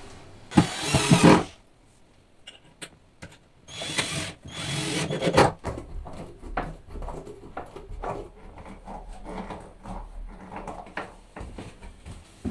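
Wooden door being hung on its hinges and handled: two loud scraping rushes, the first about a second in and a longer one from about four seconds, then scattered knocks and clicks as its round knob is worked.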